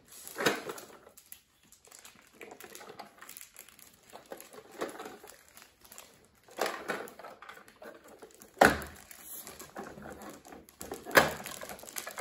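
Hard plastic toy hauler truck being handled and opened on a wooden floor: scattered clicks and knocks of plastic parts. The loudest knock comes about two-thirds of the way through.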